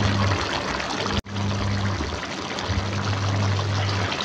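Duck pieces simmering in their cooking liquid in a wok, giving a steady bubbling hiss, with a low hum that comes and goes. The sound drops out for an instant about a second in.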